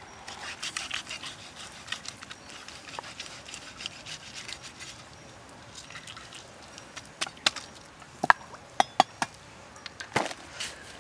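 Cleaver working raw pork ribs on a wooden stump chopping block: soft scraping and cutting sounds of meat at first, then a quick run of about seven sharp knocks of the blade striking the wood in the second half.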